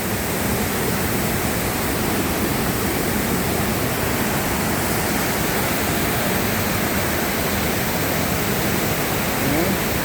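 Steady rush of water falling over the cascades of a waterfall.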